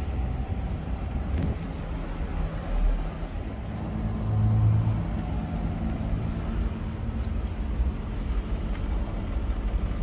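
Panasonic inverter split air conditioner's outdoor unit (CU-S10NKP) running: a steady low compressor hum under the whoosh of its condenser fan. The hum swells briefly about four and a half seconds in.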